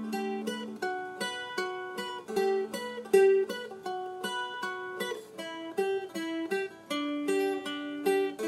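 Background instrumental music: a melody of plucked-string notes, several a second, each starting sharply and fading quickly.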